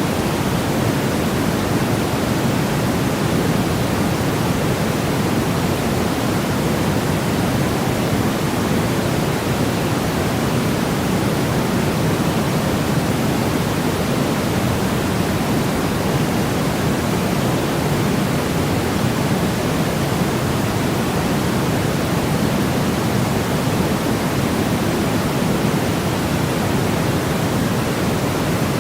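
Steady white-noise track: an even, unchanging hiss with a rumbly, low-weighted tone, and no breaks or events.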